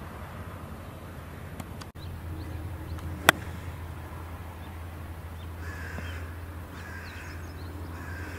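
An iron strikes a golf ball once about three seconds in: a single sharp click of the shot. Crows caw a few times near the end, over a steady low hum.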